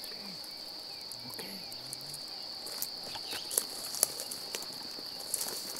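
Steady high-pitched drone of insects, with a few soft snaps and rustles of footsteps in dry grass.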